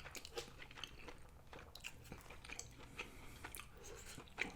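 A person chewing a mouthful of steak and cheese sub close to the microphone: faint, irregular chewing clicks, with a slightly louder one near the end.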